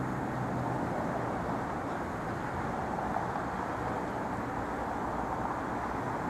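Steady city street noise: a constant wash of road traffic running, with no single event standing out.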